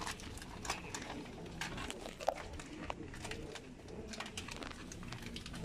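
Scattered light clicks and rustles of paper seals being handled and stuck onto a metal door, over steady low background noise.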